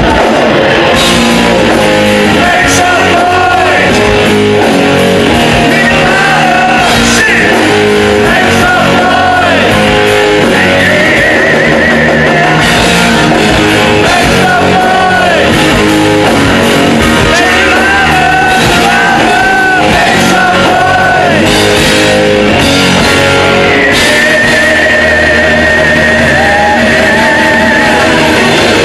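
Live hard rock band playing loud: electric guitar, bass guitar and drums, with a male lead singer singing over them.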